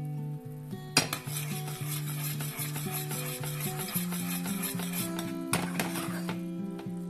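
A metal spoon stirring boiling sugar-and-water candy syrup in a stainless steel saucepan, scraping and clinking against the pot while the syrup bubbles, with two sharp clinks, about a second in and again past the middle. Background music plays over it.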